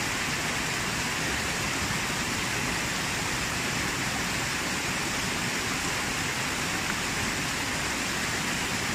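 Small waterfall pouring over rocks into a pool and cascading on downstream: a steady rushing hiss with no breaks.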